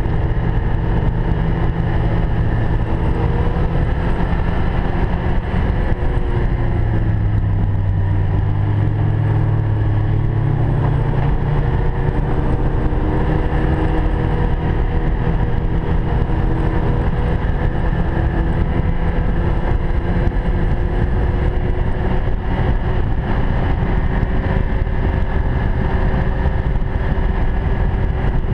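Ski-Doo Expedition 1200 4-TEC snowmobile's three-cylinder four-stroke engine running steadily under way, easing to a lower pitch about a quarter of the way in, then picking up again a few seconds later.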